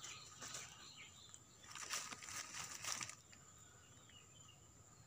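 Loose soil and small stones scraped and scooped by hand and a small digging tool, a run of scratchy rustles that is loudest from about two to three seconds in.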